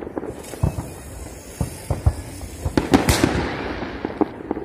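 Aerial fireworks bursting: scattered bangs and pops, the loudest about three seconds in.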